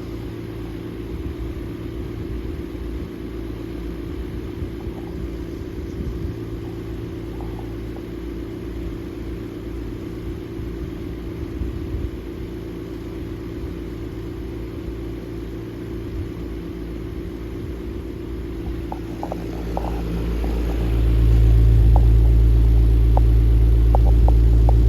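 Vintage Freshnd Aire 14-inch table fan, Model 1400, running steadily on high with a motor hum; it is kind of loud because the rubber isolators that hold the motor to the housing are missing. About twenty seconds in a much louder low rumble comes in and holds, the fan's airflow buffeting the microphone.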